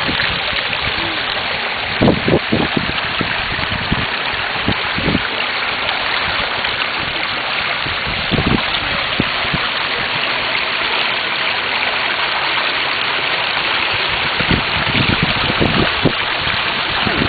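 Shallow creek water rushing over rocks in a steady wash, with a few short low thumps on the microphone.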